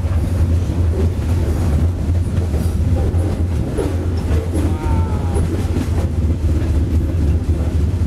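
Freight train rolling along: a loud, steady, heavy rumble with rattling and clicking from the cars, and a brief high squeal about five seconds in.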